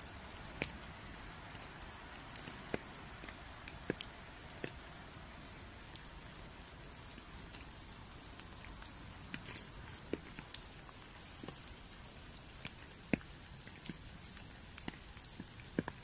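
Light rain in woodland: a steady soft hiss with scattered, irregular drops tapping on wet leaves, a few of them clearly louder.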